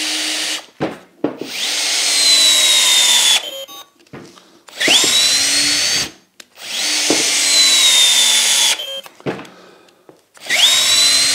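Festool C18 brushless 18 V cordless drill driver, on its lowest speed, driving a small bolt with a socket into oak without a pilot hole. It runs in four stop-start bursts: each time the motor whine rises quickly and then slowly drops in pitch as it labours under load. Short pauses with a few clicks come between the bursts.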